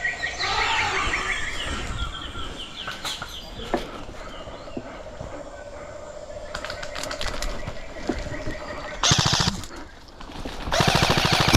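Airsoft guns firing full-auto: scattered shots, then a short rapid burst about nine seconds in and a longer, louder burst near the end.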